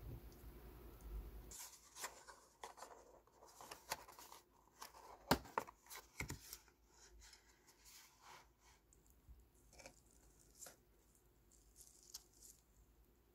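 A cardboard takeout box of takoyaki being opened by hand: paper flaps scraping and crinkling, with a run of short clicks that is loudest about five to six seconds in. It thins to a few faint taps near the end.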